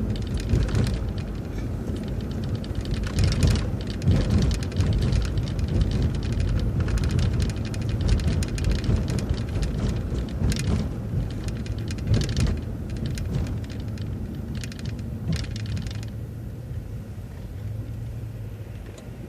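Low road rumble of a moving vehicle, with frequent rattling clicks over it. The sound eases off over the last few seconds, leaving a steady low hum as the vehicle slows.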